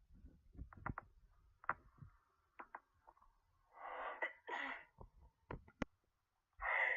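A person sneezing from a pollen allergy: a few small clicks and breaths, then two sneezes about four seconds in and another starting near the end.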